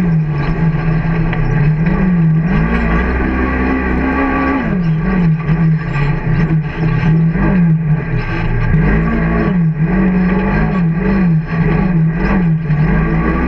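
Can-Am off-road vehicle's engine under hard driving on a rough sand track, its pitch rising and falling again and again as the throttle is opened and eased, with scattered knocks from the bumps.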